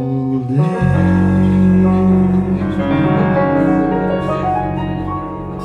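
A band's closing chord: electric piano on a Nord keyboard with bass guitar holding the last chord of the song, slowly fading.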